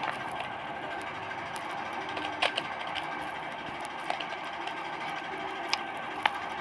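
Rubik's cube being twisted by hand: a few sharp plastic clicks of the layers turning, spaced irregularly, over a steady background hum.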